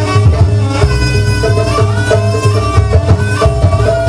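Live Javanese jaranan ensemble music: heavy drums beat steadily under a held, stepping melody line.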